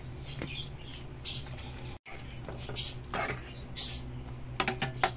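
Ground-meat tomato spaghetti sauce with cream on top, simmering in a nonstick pan: short, irregular sizzling spits over a steady low hum, with a couple of light clicks near the end.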